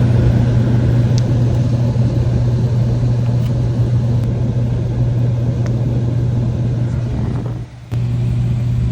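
A steady, loud motor hum with a rushing noise over it, dropping out briefly near the end.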